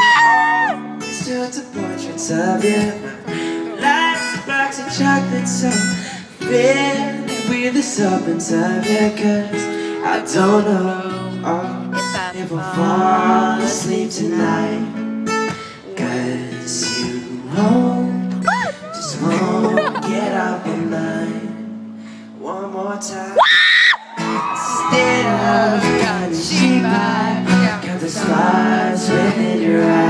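Acoustic guitars strummed live with a male voice singing. About two-thirds of the way through there is a short, loud, high-pitched cry.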